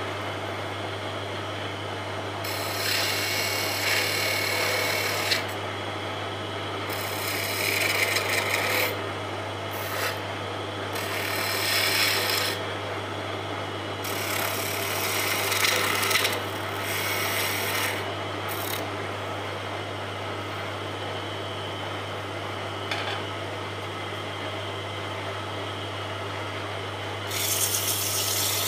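Wood lathe running with a steady motor hum while a hand-held turning tool cuts the spinning wooden spindle in repeated scraping passes of a few seconds each. Near the end, sandpaper is pressed against the spinning wood.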